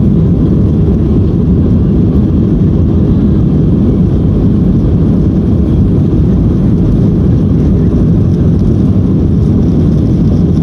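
Steady roar of a jet airliner's engines and rushing air, heard from inside the passenger cabin while the plane climbs after takeoff; the sound is deep, even and unbroken.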